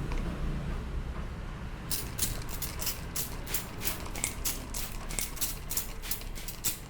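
Head massage in progress: hands rubbing and working through the hair and scalp, giving an uneven run of short, crisp, scratchy strokes, about four or five a second, that starts about two seconds in and stops just before the end.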